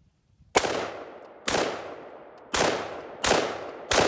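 Five single shots from an AR-15 rifle, fired one at a time about a second apart, each followed by a long echo dying away.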